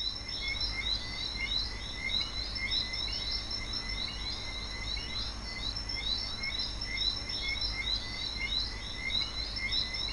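An outdoor chorus of calling animals: many quick, repeating chirps over a steady high-pitched insect drone, with a low rumble underneath.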